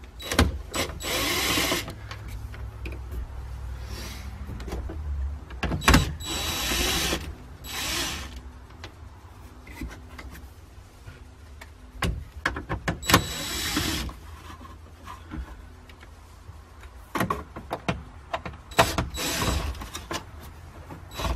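Cordless DeWalt drill/driver backing out the instrument cluster's screws in several short runs of about a second each, with the motor's thin whine in each run. Clicks and knocks of the tool and plastic trim fall between the runs.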